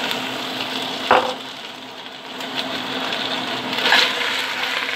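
Raw chicken pieces sizzling as they fry in hot oil with sautéed onion and garlic in a stainless steel pot. There is a sharp knock of a utensil about a second in, and the crackle grows louder with clicks of stirring near the end.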